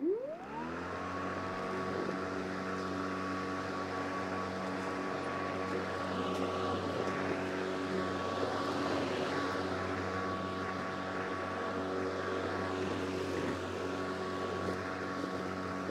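Lawn mower starting up, its pitch winding up quickly in the first second, then running at a steady hum. It is being pushed along the lawn edges to suck up the freshly trimmed clippings.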